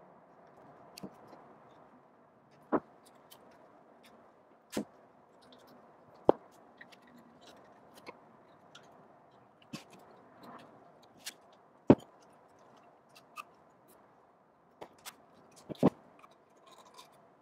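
Handling of masking tape and brass tubes on a workbench: faint rustling of tape as it is wrapped around the tubes, with a scatter of sharp clicks as the small brass tubes are picked up and set down on the bench.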